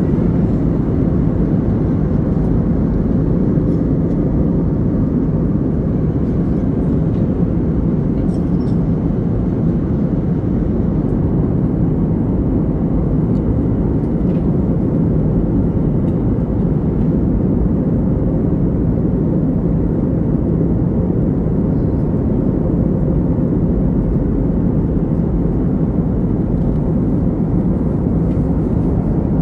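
Steady engine and airflow noise inside the cabin of an Airbus A321neo with CFM LEAP-1A engines: a low, even rumble with a faint hum, holding level throughout.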